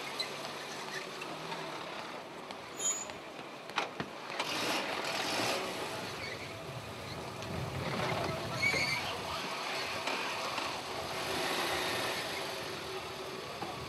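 Dacia 1300 saloon rolling slowly past on cobblestones: engine running with tyre noise over the stones, swelling twice as it passes and turns away, with a few sharp clicks and distant voices in the background.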